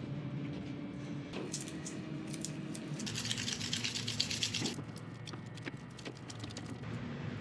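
Wood lathe motor running with a steady hum, and a tool or abrasive rasping on the spinning wood-and-resin blank for about two seconds near the middle, with a few scattered clicks.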